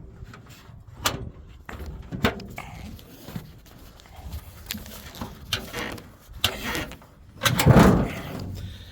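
Metal clicks, knocks and clunks as the truck's hood is unlatched and lifted, with the loudest clunk about three-quarters of the way through.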